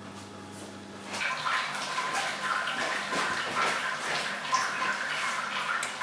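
Hot sparge water splashing and trickling through the grain bed during sparging. It starts about a second in, after a low steady hum, and keeps going.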